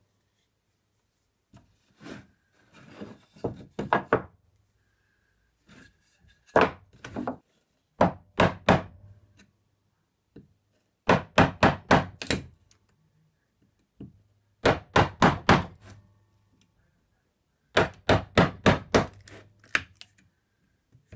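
Wooden mallet striking a bench chisel to chop a notch out of a wooden block. The sharp knocks come in about six quick bursts of several strikes each, with pauses between.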